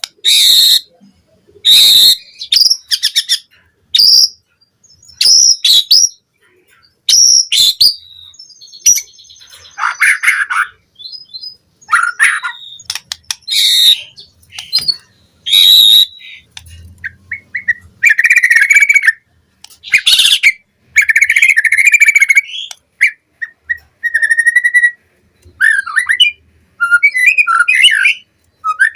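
White-rumped shama (murai batu) in full song: loud, varied phrases of clear whistles, chirps and fast trills, each lasting a second or so, with short pauses between them.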